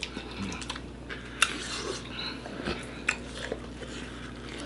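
Quiet sounds of eating at a table: a few light, sharp clicks of plates or utensils being handled, the clearest about one and a half seconds in and again about three seconds in.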